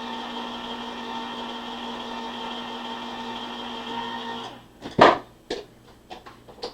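Electric can opener running steadily as it cuts around the lid of a steel can, then stopping about four and a half seconds in. A sharp clack, the loudest sound, comes about half a second later, followed by a few lighter knocks.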